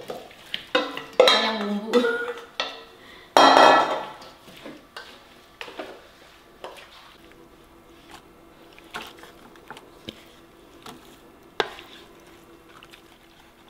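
A wooden spoon scraping and knocking against a stainless steel mixing bowl as seasoned shrimp are tipped out onto a banana leaf. The loudest clatters come in the first few seconds, then lighter taps and scrapes, with one sharp knock near the end.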